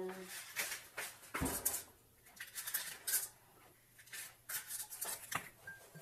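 Kitchen handling noises at a mixing bowl: a string of light clicks and taps, with one louder thump about one and a half seconds in.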